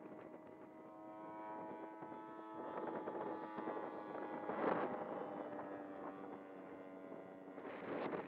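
Radio-controlled model aeroplane's engine droning steadily at full throttle in flight, its pitch sagging slightly after about five seconds as it passes. There are brief rushes of noise about four and a half seconds in and again near the end.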